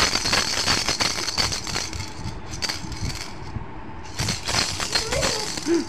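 Baby shaking a plastic toy rattle: fast, dense rattling in the first two seconds, then shorter bursts of rattling. A brief voice sounds near the end.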